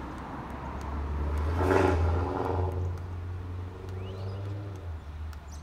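A motor vehicle passes close by, growing louder to a peak about two seconds in and then fading, over a steady low engine rumble.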